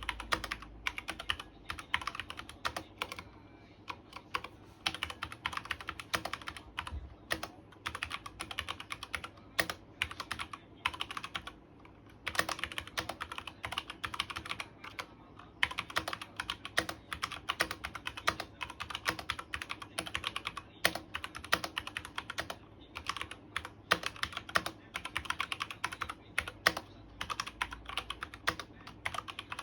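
Cooler Master CK530 mechanical keyboard with brown switches being typed on in quick, uneven bursts of key clicks, with two brief pauses.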